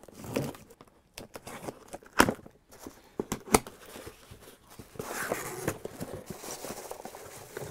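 A cardboard shipping box being cut open: sharp clicks and scrapes of a blade through the packing tape, the two loudest a little over two seconds and three and a half seconds in. About five seconds in comes a steady crinkly rustling as the flaps open and the plastic bag inside is handled.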